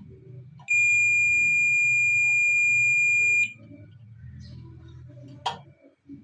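Digital multimeter on its diode/continuity beep setting giving one steady high-pitched beep, a little under three seconds long, with its probes across the microwave magnetron's terminals: continuity through the filament, which the repairer takes to mean the magnetron is good. A short click follows near the end.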